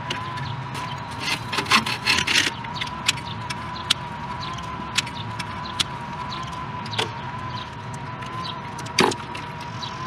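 Hands working wiring inside an air-conditioning unit's electrical panel: scraping and rustling about a second and a half in, scattered sharp clicks, and a thump near the end, over a steady high whine.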